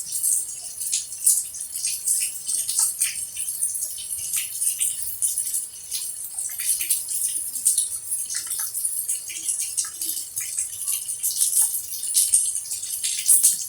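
Rain pattering, with a dense, irregular run of small drips and ticks and no letting up.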